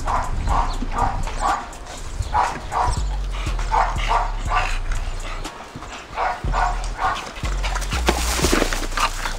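Dog barking repeatedly in quick runs of about two to three barks a second, with short pauses between runs.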